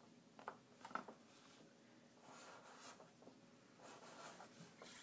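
Faint scratching of drawing on paper. A few light clicks come in the first second, then two short spells of scratchy strokes.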